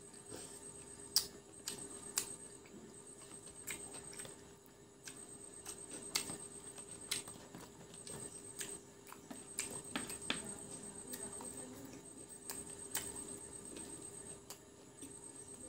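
Close-miked eating sounds: chewing with irregular sharp crunches and mouth clicks, over a faint steady hum.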